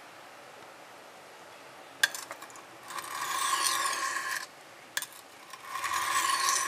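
Stainless-steel kitchen knife blade scraped across a water-wetted Smith's Tri-Hone sharpening stone: a tap as the blade is set down about two seconds in, then a hard rasping stroke of about a second and a half, and the same again. These are pressed test strokes that scratch the edge bevel to check the sharpening angle.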